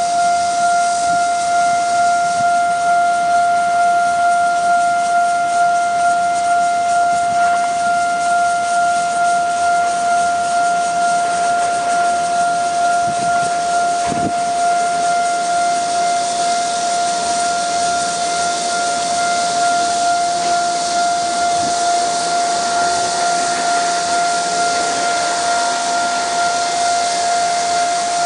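Railway level-crossing warning bell sounding continuously, a steady high tone with an overtone that pulses slightly. From about halfway through, a rising hissing rush grows under it as the train hauled by an E200-series electric locomotive draws near.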